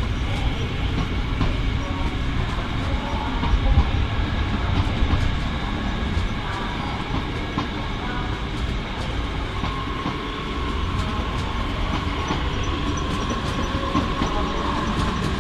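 A train moving through the station: a steady rolling rumble of wheels on rail with light clicks, and a thin steady whine that comes in about two-thirds of the way through.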